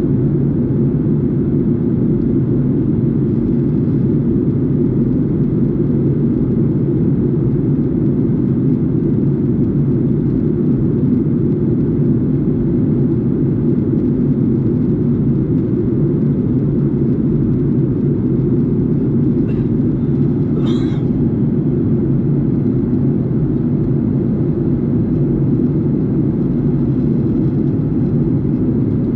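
Steady cabin noise of a jet airliner in flight, heard inside the passenger cabin by the wing: an even, deep rumble of engines and airflow that does not change.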